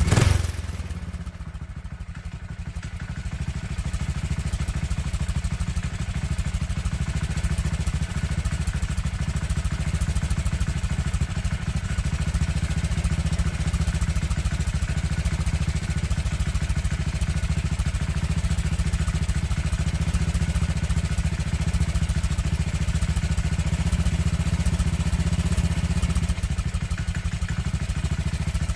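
Motorcycle engine starting up with a loud burst, then idling steadily in an even, low, rapid beat. The idle dips just after it catches and settles about four seconds in.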